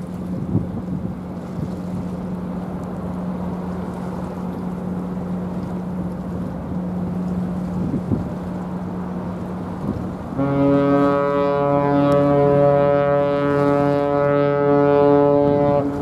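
The container ship PACIFIC SINGAPORE sounds one long blast on its whistle, a steady deep horn note about five and a half seconds long that starts about ten seconds in. Before it there is only a low steady hum and wind on the microphone.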